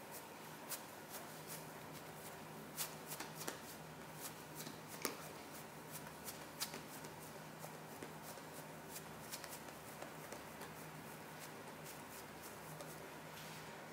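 Hands pressing and patting down a soft ball of lupin-flour bread dough on a silicone pastry mat: faint, irregular light pats and taps.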